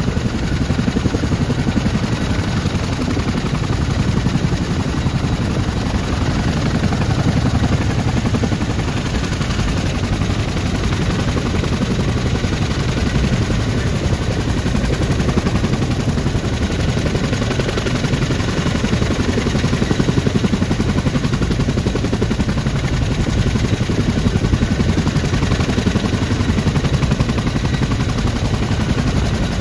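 CH-47 Chinook tandem-rotor helicopter running on the ground with both rotors turning: a loud, steady, rapid chop of the blades.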